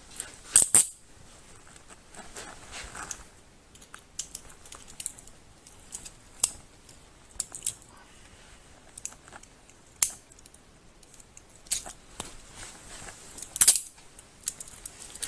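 Scattered sharp metallic clicks and jingles with soft rustling between them: handcuffs and keys being handled as the cuffs come off and a pat-down goes on.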